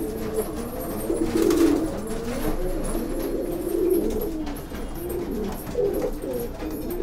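Several domestic Rakdher pigeons cooing, their low coos overlapping one another.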